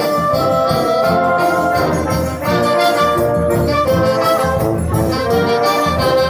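Wind band playing, with brass (trombones and trumpets) carrying sustained chords over a rhythmic bass line.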